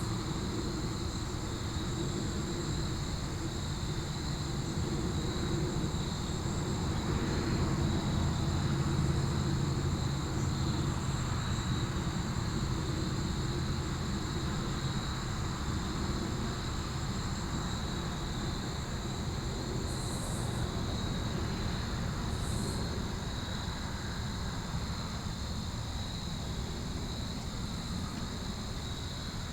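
Steady insect chorus chirping continuously, over the low rumble of a distant engine that swells about eight seconds in and then fades slowly.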